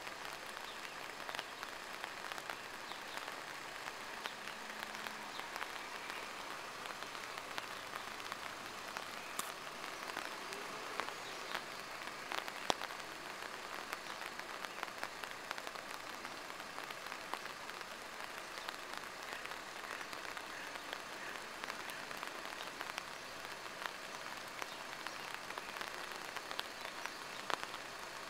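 Steady rain falling and pattering, with scattered drop ticks and one sharp click about halfway through.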